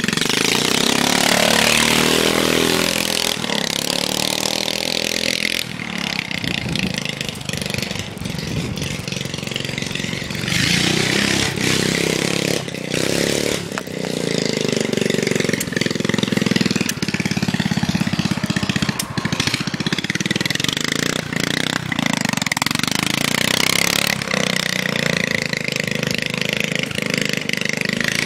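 Pro-stock racing lawn tractor's 13.5 hp Briggs & Stratton engine running hard as it drives around, its pitch rising and falling again and again with the throttle.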